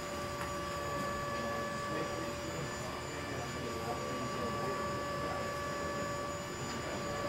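A steady background hum and hiss with a constant high whine.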